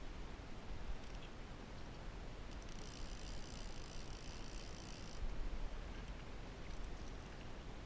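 A fly reel's ratchet drag buzzing as the spool turns for about two and a half seconds, starting a little under three seconds in, over a steady low rumble.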